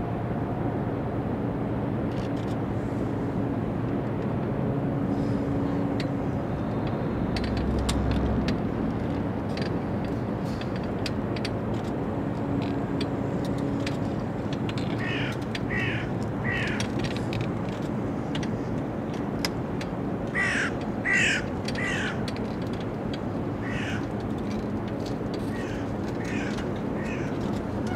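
A crow cawing in runs of about three calls, starting about halfway through, with the loudest run a few seconds later, over a steady low rumble.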